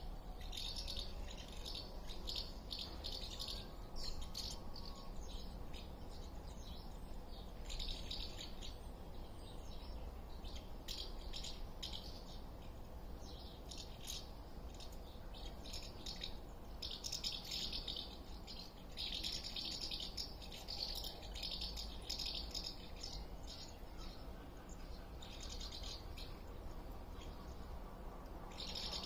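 House martins twittering: clusters of dry, rattling chirps that come and go every second or two, over a steady low rumble.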